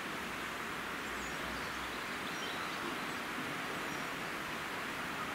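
Steady rushing of a river running high with a lot of water.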